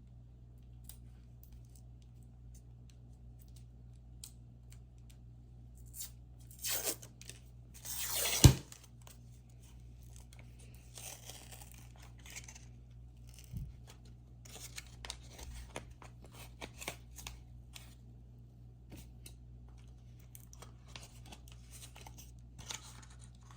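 Refrigerated cinnamon roll tube being opened: a paper wrapper tears twice, then the can splits open with one sharp crack about eight and a half seconds in. Quieter rustling and small clicks follow as the dough is handled.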